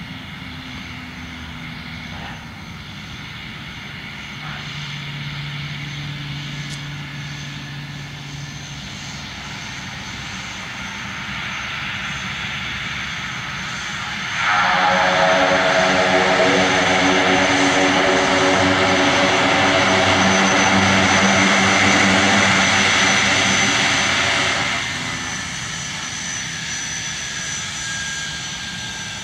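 Twin Pratt & Whitney PT6A turboprop engines of a King Air C90A running at low power as it taxis: a steady propeller drone with a high thin turbine whine. About halfway through it becomes much louder all at once, stays loud for about ten seconds, then drops back.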